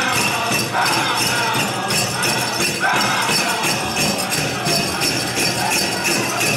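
Pow wow drum group singing over a steady drumbeat, with bells on the dancers' regalia jingling.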